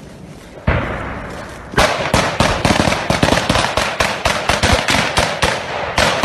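Close small-arms gunfire: a loud bang less than a second in, then rapid, irregular shots several a second, the covering fire of fellow soldiers.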